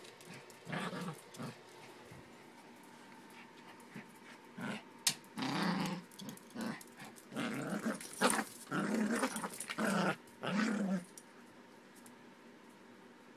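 Yorkshire terrier growling in repeated bursts while play-fighting with a toy. The growls are sparse at first and then come thick and fast from about four to eleven seconds in, with a sharp click about five seconds in.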